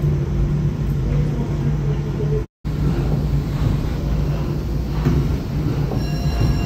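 A 120-year-old 650-horsepower paddlewheel steam engine running, heard as a steady low rumble with a steady low hum. The sound drops out for a fraction of a second about two and a half seconds in.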